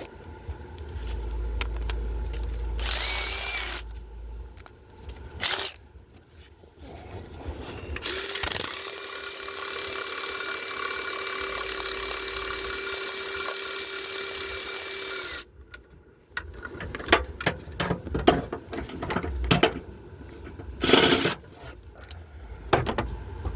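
A handheld power tool spinning out engine bracket bolts, running steadily for about seven seconds in the middle with a shorter run a few seconds in; metal clicks and knocks of tools and bolts around it.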